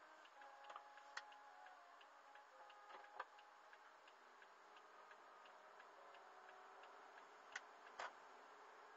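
Faint, quick, even ticking of a car's turn-signal indicator heard inside the cabin while the car makes a turn; it stops near the end, where two louder knocks sound.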